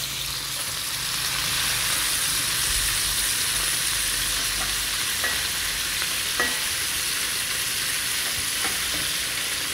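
Whole small river fish (pepescas) and tilapia frying in hot oil in a frying pan, a steady sizzle. A few faint clicks come in the middle as a metal spatula moves the fish about.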